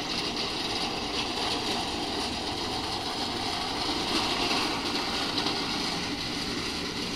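Scooter rolling along pavement: a steady rumble with a hiss, swelling slightly in the middle.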